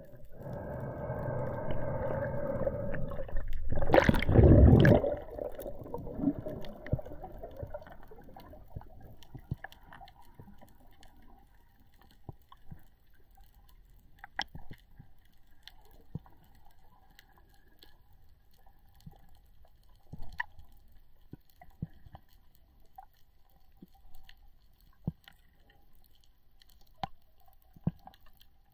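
Underwater sound on a freediving descent, heard through a mask-mounted camera. A droning pitched sound fades over the first few seconds. About four seconds in there is a loud burst of rushing water noise, then only faint scattered clicks and a faint steady hum.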